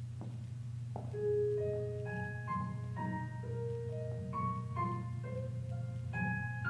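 Instrumental introduction to a song on a bell-like keyboard, with single notes struck one after another and left to ring over a steady low hum.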